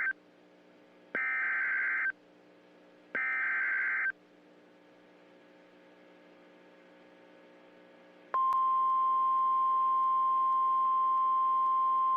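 Emergency Alert System header data bursts: the tail of one burst, then two more buzzy digital squawks, each about a second long and a second apart. About eight seconds in, a steady single-pitch attention tone starts abruptly and holds, the long tone that comes before a warning message is read.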